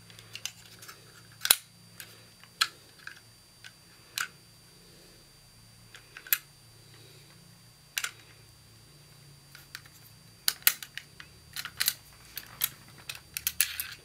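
Sharp metal clicks and clacks as a new replacement part is worked into the open steel receiver of a stripped Mossberg 590 Shockwave 12-gauge shotgun. The clicks come irregularly, with a single loud one about a second and a half in and a quick run of them in the last few seconds.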